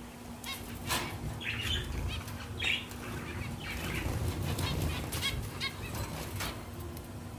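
A flock of zebra finches calling, many short nasal calls overlapping in quick succession, with wings fluttering.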